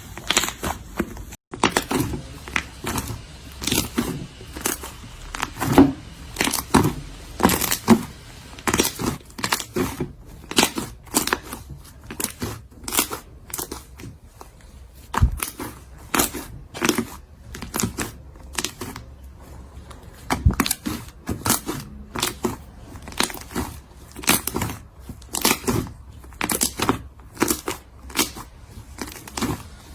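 Slime being squished and stretched, making a rapid, irregular run of sticky pops, clicks and crackles.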